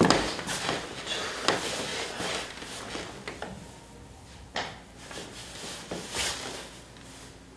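Rustling and rubbing of a cotton hoodie as its hood is pulled up over a head and the garment is handled, in a string of short brushing strokes with a couple of sharper ones about halfway through.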